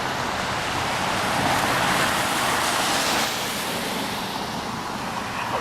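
A road vehicle passing on a flooded, rain-soaked road, its tyres throwing up water in a steady hiss that swells about a second and a half in and fades after about three seconds.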